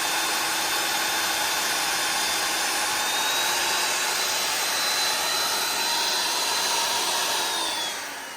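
Milwaukee magnetic drill running an annular cutter through a steel truck frame, a steady motor whine with cutting noise. Near the end the motor is switched off and winds down in a falling whine as the hole is finished.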